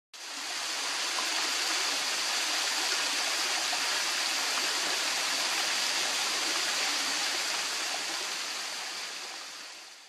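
Small waterfall splashing down a rock face into a pool, a steady rush of falling water. It starts abruptly and fades away over the last couple of seconds.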